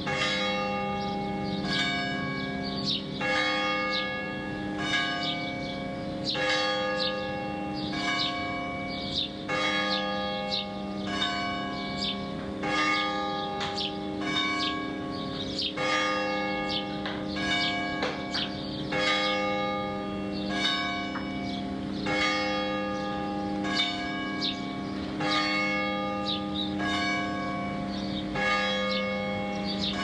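Church bells hung in an open steel frame tower tolling a funeral toll. The bells are struck in turn about every second and a half, each one ringing on under the next.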